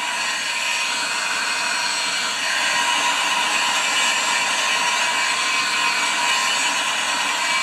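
Electric heat gun running steadily, a rush of hot air with a faint motor whine, as it shrinks heat-shrink tubing onto a rubber intake elbow.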